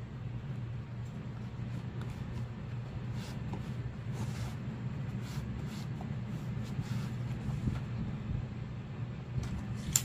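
Wooden hongdukkae roller wound with indigo-dyed cloth being rolled back and forth by hand on a cloth-covered floor to smooth the cloth: soft rubbing and faint light knocks over a steady low hum, with one sharp click near the end.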